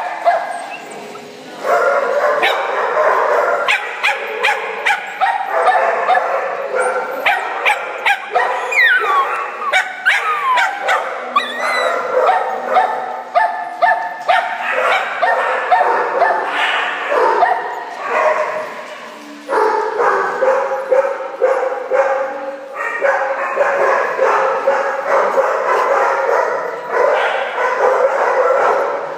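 Two puppies yipping and barking almost without pause as they play-fight.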